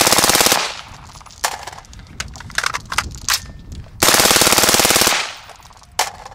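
Suppressed LaRue Tactical SUURG 5.56 mm rifle firing on full auto: a burst that stops about half a second in, a few scattered sharp cracks, then a second burst of about a second starting about four seconds in, and a single click near the end. The suppressor is hot from hundreds of rounds of sustained fire and is losing some of its sound suppression.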